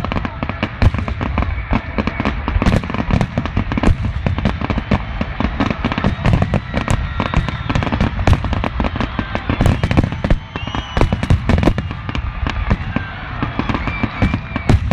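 Aerial fireworks going off in a rapid, unbroken barrage of bangs and crackles, easing for a moment about ten seconds in.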